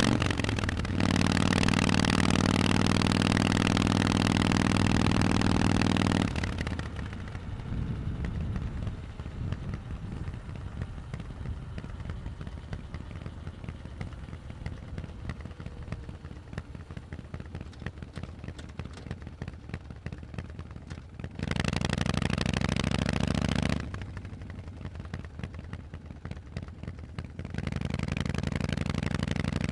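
Harley-Davidson Forty-Eight's air-cooled V-twin through a Vance & Hines exhaust, running under steady throttle for about six seconds, then dropping back to a low, pulsing idle. About two-thirds of the way through it gets a brief two-second burst of throttle, falls back to idle, and pulls away again near the end.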